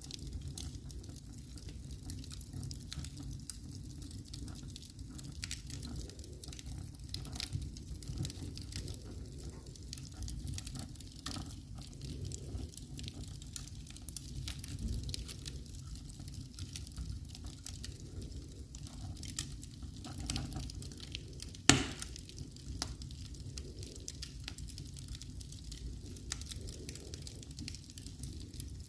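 Wood fire crackling in a fireplace: a steady low rumble with scattered small crackles, and one loud sharp pop about three quarters of the way through.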